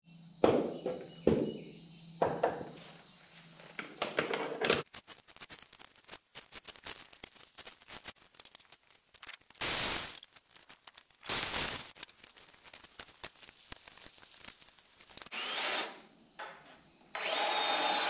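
Power tools working 2x4 framing lumber: a cordless drill driving screws in short bursts, with a few brief saw cuts.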